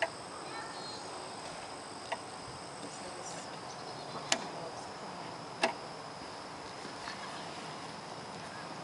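Quiet outdoor background with a thin, steady, high insect drone, broken by three sharp clicks as the mower's loose front wheel is handled.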